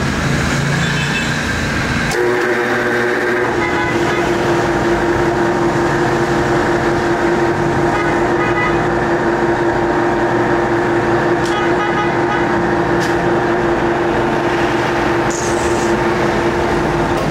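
Lathe running: a steady pitched hum with overtones comes on about two seconds in and holds at one pitch, with a few short clicks over it.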